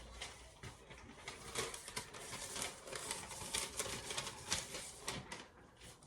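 Freshly sharpened knife slicing through paper, with crisp, uneven rustling and small ticking sounds as the paper is cut and handled: an edge test after sharpening.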